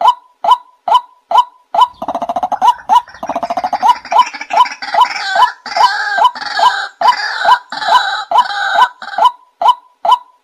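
White-breasted waterhen calling: a steady series of short 'wak' notes, a little over two a second. About two seconds in they break into a loud, jumbled chorus of rapid rattling and harsh croaks, which settles back into the repeated short notes near the end.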